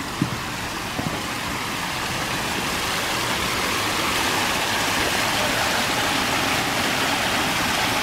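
Backyard pond waterfall: water spilling over stacked flagstone ledges and splashing onto gravel in a steady rush that grows louder over the first few seconds, then holds. A couple of soft thumps fall in the first second.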